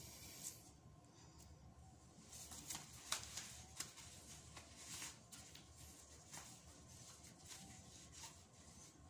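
Faint rustling of shirt fabric and a few small clicks as a bow tie's strap is put round a shirt collar and fastened at the throat, the sharpest click about three seconds in.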